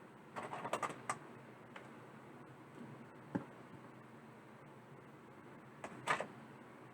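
Light clicks and taps from small tools and wire being handled during soldering: a quick cluster of clicks about half a second in, a single knock midway, and another short cluster near the end, over a faint steady hiss.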